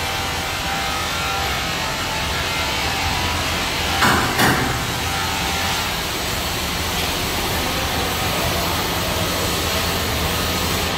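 Double cone blender running, its drive motor and gearbox turning the stainless steel cone, a steady mechanical noise with a low hum. Two sharp knocks about four seconds in.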